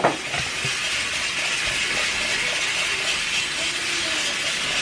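Pressure cooker hissing steadily as it vents steam, with a brief knock right at the start.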